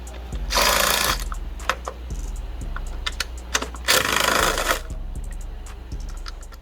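Workshop tool noise: rapid, irregular mechanical ticking with two bursts of hiss, each just over half a second long and about three seconds apart.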